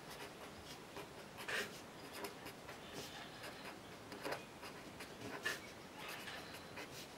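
Felt-tip pen writing on paper: faint, short scratchy strokes at irregular intervals as letters are drawn.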